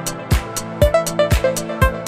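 Background music with a steady kick-drum beat about twice a second, sharp percussive hits between the beats, and a melodic line over the top.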